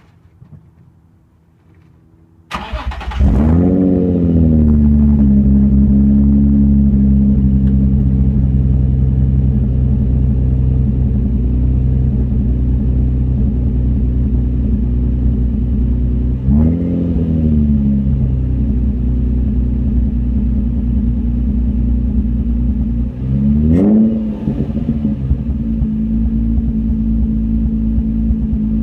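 Nissan 350Z's 3.5-litre V6 starting about two and a half seconds in, flaring up and settling to a steady idle, revved briefly twice later on; the engine has a misfire.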